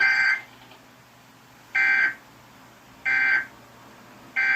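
Emergency Alert System digital data tones: four short, buzzy bursts of the two-tone SAME data warble, each about a third of a second long and spaced one to two seconds apart. Coming straight after the voice message, they are the end-of-message code that closes the alert.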